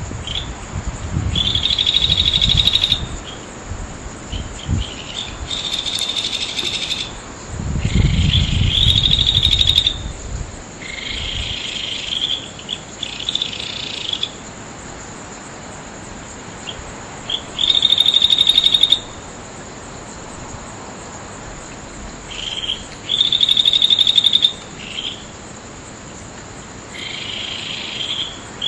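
Bell crickets (suzumushi) singing: buzzy, ringing trills of one to two seconds each, repeated every few seconds, over a steady high insect hum. A low rumble sits under the first few seconds and again around eight seconds in.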